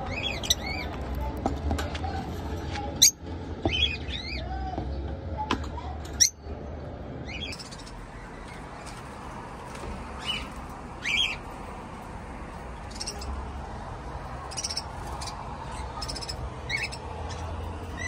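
Pet parrots in cages giving short chirps and squawks on and off throughout, with two sharp knocks about three and six seconds in.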